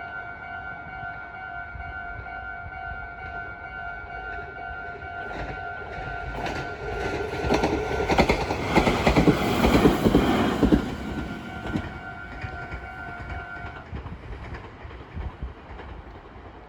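Japanese level-crossing alarm ringing its steady repeated two-tone bell while a train passes, its wheels clacking over the rail joints. The train is loudest around the middle, then fades. The crossing bell cuts off a couple of seconds after the train has gone.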